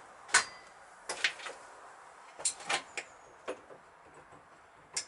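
Metal parts and tools clinking and knocking as a motorcycle front end is being fitted: a handful of sharp, irregular clicks and taps.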